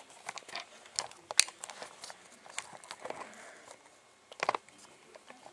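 Handling noise from a camera being fitted onto a tripod head: scattered clicks and knocks, a short rustle about three seconds in, and a quick cluster of taps near the end.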